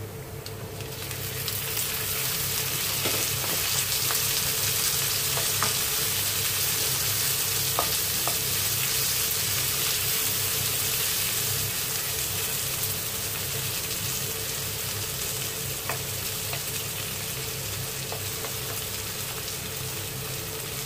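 Raw shrimp sizzling as they fry with chopped garlic and onion in a nonstick wok. The sizzle swells in the first second or two as the shrimp go into the pan. A wooden spatula stirring them gives a few faint taps and scrapes.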